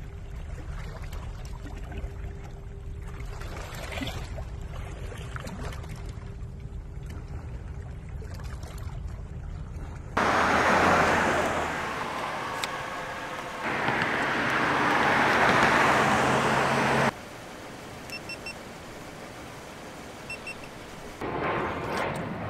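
Low rumbling wind noise on a phone's microphone over shallow water. About ten seconds in, it cuts to a louder, even rushing hiss that lasts about seven seconds and then stops suddenly, leaving quieter outdoor noise with two faint sets of short high beeps.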